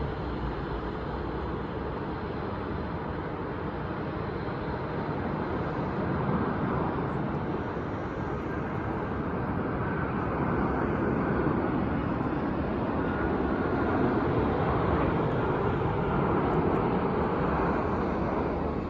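Jet airliner engines passing: a steady rushing roar that swells through the middle and eases near the end, with a faint high whine over it.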